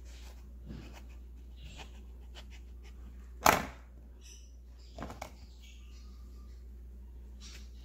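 Quiet handling sounds of a serrated kitchen knife slitting an eggplant, with one sharp knock about three and a half seconds in and a few smaller clicks about a second and a half later.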